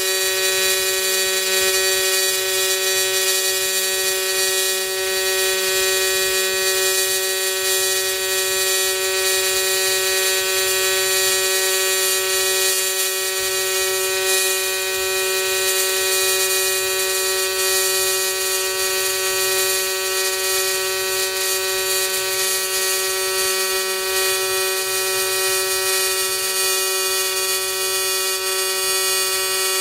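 AC TIG welding arc on aluminum from an Everlast 210EXT with the AC frequency turned up to about 200 Hz and the triangle waveform: a steady, high-pitched buzz like a bumblebee that runs without a break.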